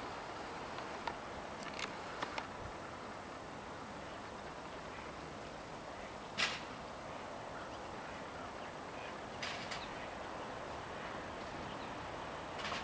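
Faint steady outdoor background with a few short, sharp sounds from a flock of ducks, the loudest about six and a half seconds in.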